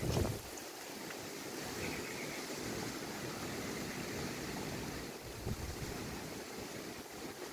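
Strong wind with waves washing on a lake, a steady rushing noise. A gust buffets the microphone at the very start.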